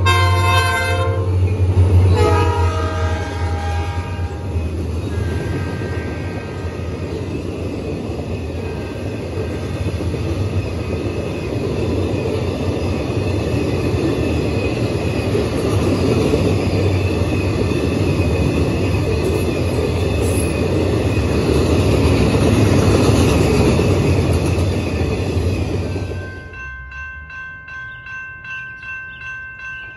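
Norfolk Southern diesel freight locomotives sounding their air horn as they pass, with a long blast at the start and shorter ones in the first few seconds, then the steady rolling noise of wheels as the steel-coil cars go by. About 26 seconds in the sound cuts to a crossing bell ringing with an even beat.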